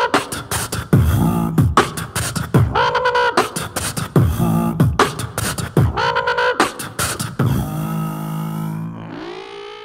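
Beatboxing into a handheld microphone: a single voice making drum-like kicks and snares in a steady beat under a repeating pitched vocal riff. Near the end the beat stops into a held low tone, then a sung note glides up and is held with vibrato.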